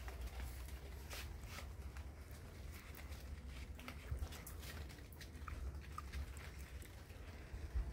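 Quiet outdoor ambience: a low rumble of wind on the microphone with scattered light ticks and a couple of faint short chirps a little past the middle.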